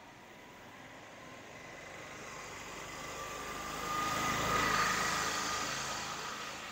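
A motor vehicle passing by on the road, its engine growing louder to a peak about four and a half seconds in, then fading away.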